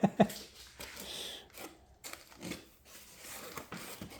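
Packing material being handled, crinkling and rustling in irregular bursts, with a few small knocks.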